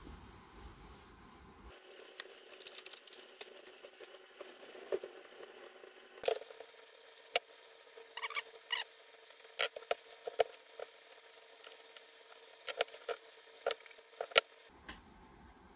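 Scattered clicks, taps and light scraping of a screwdriver, plastic fan housings and aluminium heatsink parts being handled while a heatsink-and-fan assembly is unscrewed and taken apart; a few sharper clicks stand out in the second half.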